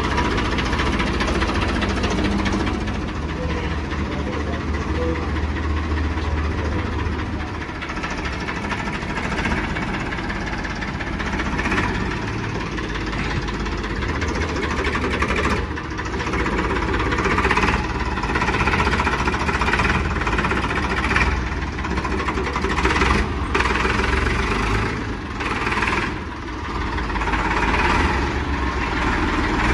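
Sonalika 740 tractor's diesel engine running at low speed while the tractor is driven, its note rising and falling in the second half.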